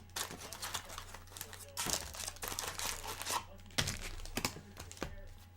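Trading-card pack wrappers crinkling and tearing as packs of 2014 Topps Valor Football are ripped open by hand, in irregular bursts of rustling.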